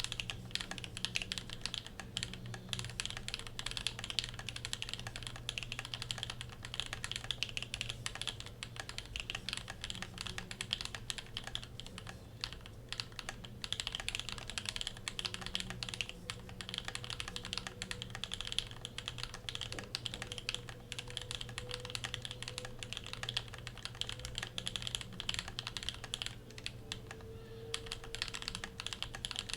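Continuous typing on a custom mechanical keyboard with an aluminium plate, NK Silk Olivia linear switches lubed with a Krytox 105 and 205g0 mix, and GMK keycaps: a dense, irregular stream of keystroke clacks. It starts right at the beginning and lets up briefly near the end.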